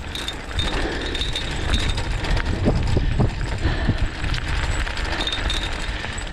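Wheeled dog-sled rig, a training cart with wheels, rolling quickly over a dirt trail behind a running malamute: a steady rumble and rattle from the wheels and frame, with scattered knocks from bumps.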